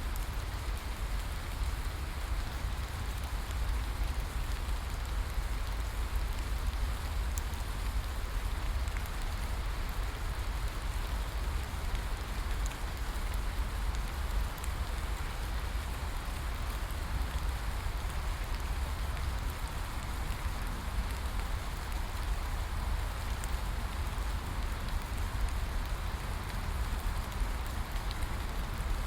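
Steady rain falling in a forest, an even hiss of drops with a low rumble underneath and a few faint separate drips.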